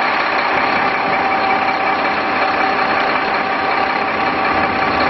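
Mack GU813 truck's 340 hp diesel engine running steadily, powering the raised Hiab knuckle-boom crane, with a steady high whine over the engine noise.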